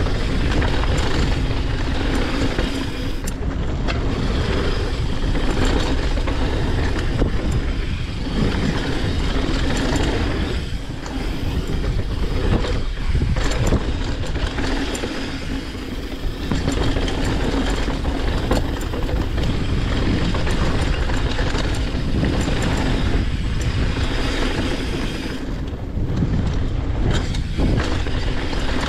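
Mountain bike rolling fast down a dirt and gravel flow trail: continuous tyre noise on the loose surface and rattling of the bike over bumps.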